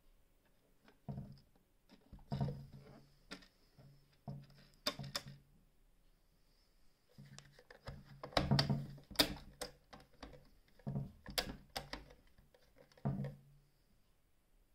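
Hands handling the Singer 449 sewing machine's body: irregular knocks, taps and rubbing against its casing, busiest around the middle.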